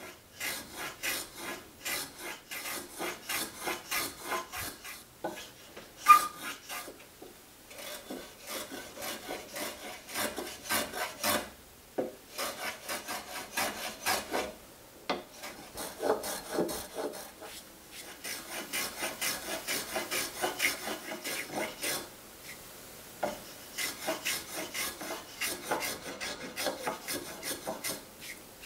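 Small metal hand plane shaving the end of a Douglas fir post in quick, repeated short strokes, a dry scrape with each pass and short pauses between runs. A single sharp tap about six seconds in.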